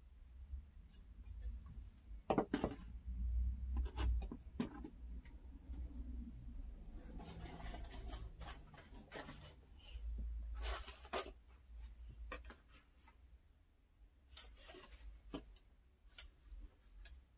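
Handling noises as shoes and small props are set in place: scattered sharp clicks and knocks, a stretch of rustling about halfway through, and a low rumble that comes and goes.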